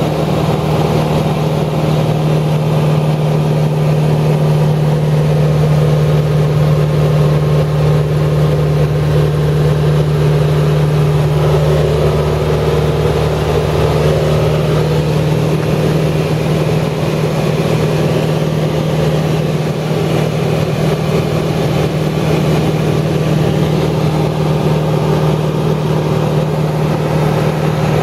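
A steady low hum from a running engine, holding an even pitch without revving up or dying away.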